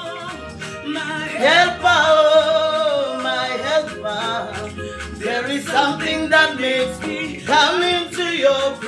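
Gospel worship song: a voice sings long, gliding phrases over instrumental accompaniment.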